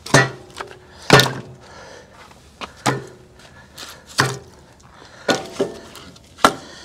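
Split oak and pecan firewood logs being set down one at a time on a stack atop the steel firebox of a Workhorse Pits 1975 offset smoker: about six sharp wooden knocks a second or so apart, some with a brief ring.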